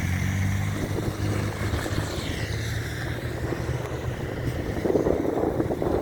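A motor vehicle's engine hums steadily, with a sweeping hiss as it passes; near the end, gusts of wind buffet the microphone.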